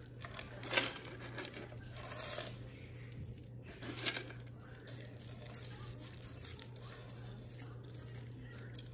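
Crispy fried onions rustling and crunching as they are crumbled by hand and shaken from a plastic tub onto a casserole, with louder crackles about a second in and again about four seconds in, over a steady low hum.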